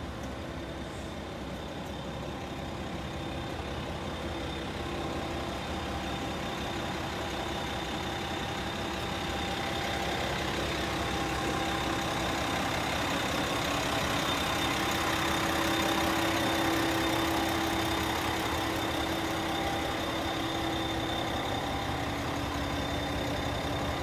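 Diesel railcar engine idling steadily, with a faint steady high whine over the low drone, growing gradually louder toward the middle.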